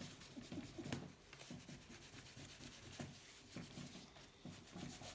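Cloth with Autosol metal polish rubbing over a small die-cast Hot Wheels car body in faint, irregular back-and-forth strokes, with a couple of light clicks.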